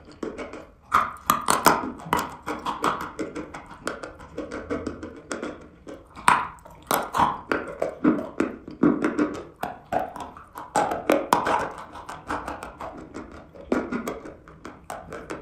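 Close-up crunching and chewing of a lump of eating chalk: many irregular sharp crackles as it is bitten and ground between the teeth, with wet mouth sounds as it turns to paste.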